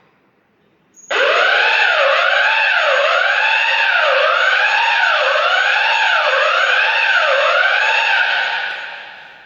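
Electronic fire alarm sounder going off. Its siren tone rises and falls about once a second over a thin steady high whistle. It starts suddenly about a second in, dies away near the end and cuts off.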